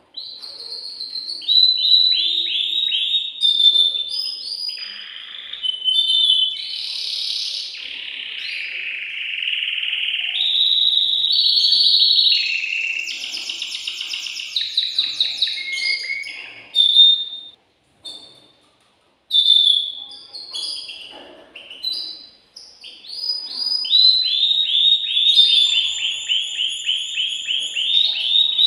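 Male domestic canary singing an excited breeding song: fast rolls of rapidly repeated high notes, with a harsher buzzing stretch about eight seconds in and a brief pause about eighteen seconds in, then another long fast roll near the end.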